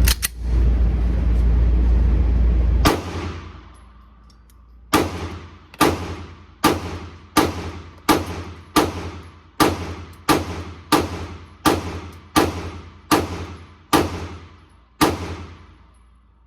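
Pistol fire at an indoor range: a single shot, then after a pause a steady string of about fourteen shots, a little faster than one a second, each with a short echoing tail. Before the first shot there is a loud low rumble.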